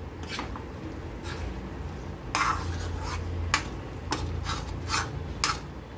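A metal spatula stirring thick, nearly cooked wheat rava upma in a kadai, with irregular short scrapes and knocks against the pan over a steady low hum. The upma is mixed every half minute so it does not burn.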